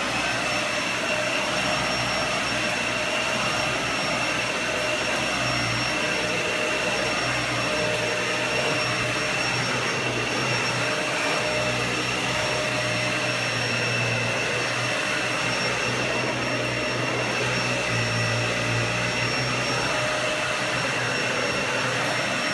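Dyson DC65 upright vacuum cleaner running steadily, a high whine over the rush of air, with a low hum that swells and fades now and then.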